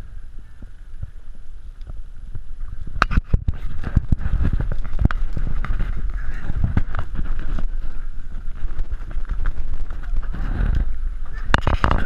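Wind and handling noise rumbling on a body-worn camera's microphone, with scattered knocks and clatter of gear being handled and moved.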